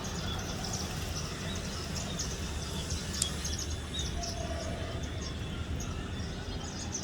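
Many small birds chirping in short, high calls throughout, over a steady low background rumble.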